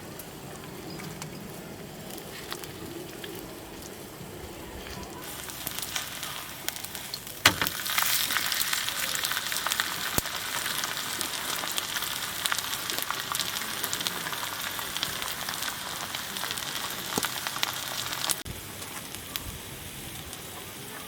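Food sizzling and crackling in a hot pan, a dense hiss that starts suddenly about five seconds in. There is a sharp knock a couple of seconds later, and the sizzling cuts off shortly before the end.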